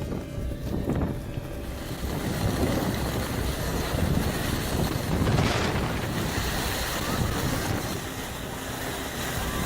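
Storm wind blowing hard across the microphone, a steady rushing noise that swells briefly about halfway through.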